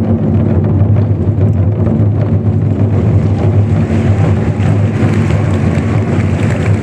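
Ensemble of large Chinese festive drums played in a fast, continuous roll, making a dense low rumble with no separate strokes standing out. The rumble grows brighter in the second half.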